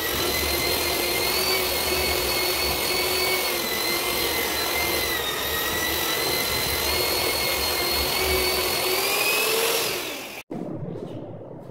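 Handheld electric paddle mixer running steadily as it stirs tile adhesive in a bucket, its motor whine wavering slightly in pitch under the load of the thick mortar. Near the end the whine rises in pitch, then dies away and cuts off abruptly.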